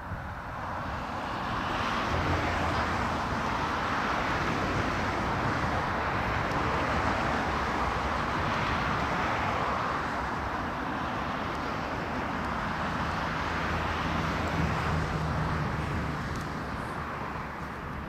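Road traffic: a steady rush of passing vehicles with a low engine hum underneath, swelling and easing off a few times.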